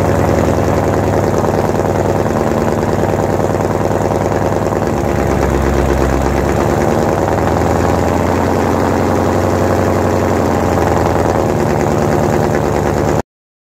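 Ford Mustang GT's 5.0 Coyote V8 at cold-start fast idle through long-tube headers, high-flow cats, an H-pipe and a Corsa Track axle-back, a loud, steady exhaust note that is nearly ear piercing. The low note shifts briefly about five to six seconds in, and the sound cuts off suddenly near the end.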